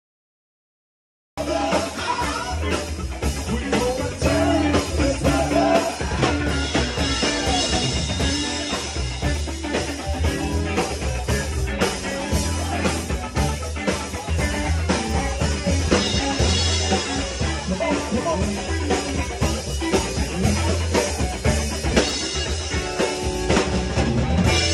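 Live band playing funky rock: drum kit, bass, electric guitar and a singer. The music cuts in after about a second of silence.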